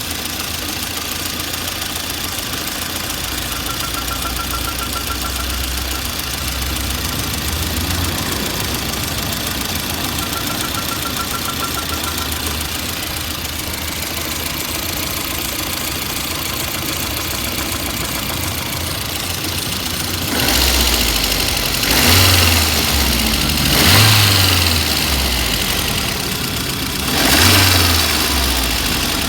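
VAZ-2113 car engine idling steadily, then revved in four short blips over the last third, recorded to show an unexplained extraneous noise from the car. A faint rapid high chirping comes and goes twice during the idle.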